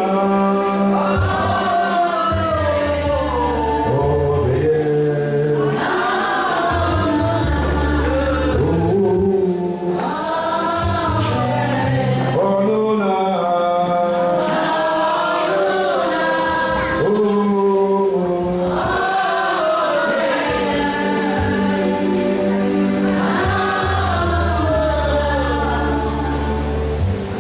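Congregation singing a gospel praise song together with a band, with a steady bass line under the voices.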